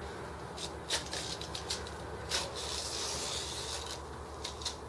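Handling noise from the old sling seat being pulled off a sling chair frame: fabric rustling and scraping, with scattered small clicks and a longer rustling scrape in the middle.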